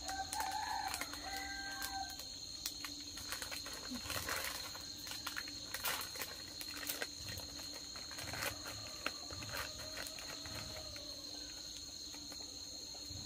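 Outdoor ambience of insects giving a steady high-pitched drone, with a short pitched animal call about half a second in and scattered faint clicks.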